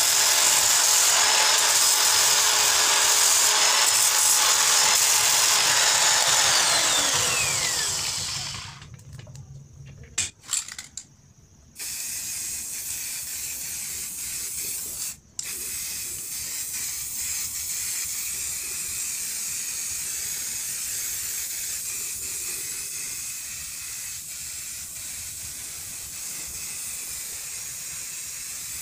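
Electric drill with a foam polishing pad running against the steel tubes of a chair base, winding down with a falling whine about eight seconds in. After a few clicks, an aerosol can of black spray paint hisses steadily, with a brief break partway through.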